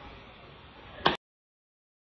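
Faint microphone hiss, then about a second in a single sharp computer mouse click, after which the sound stops dead.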